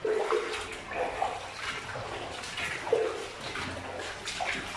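Irregular footsteps and scuffing of someone walking through a tunnel.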